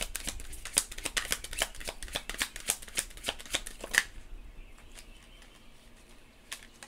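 Tarot deck being shuffled by hand: a quick run of card flicks and snaps that stops with a sharper snap about four seconds in, then one soft click near the end.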